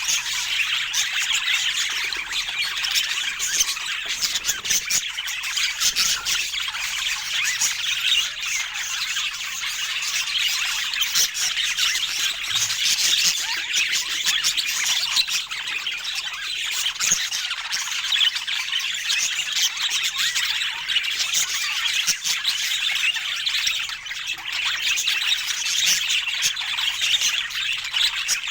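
Budgerigars chattering and squawking continuously, a dense run of quick high-pitched chirps and warbles without pause.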